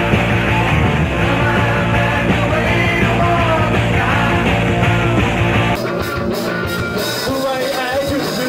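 Live rock band playing loud, with a lead vocal over electric guitars, bass and drums. About two-thirds of the way through it cuts abruptly to a different live recording of a rock band, thinner in the bass.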